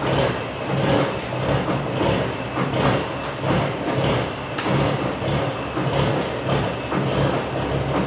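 A truck engine runs steadily under scattered knocks and clunks as a heavy machine tool rolls on machinery rollers off a rollback truck's deck. One sharper knock comes about four and a half seconds in.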